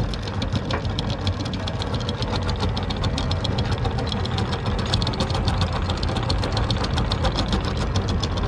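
Sailing yacht's inboard diesel engine running steadily, with a fast, even ticking over a low hum.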